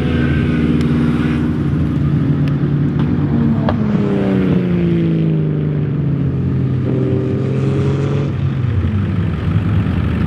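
Drift cars' engines running hard on the track, held high in the revs, with the pitch sliding down over several seconds in the middle as a car passes and backs off. A few sharp clicks sound in the first four seconds.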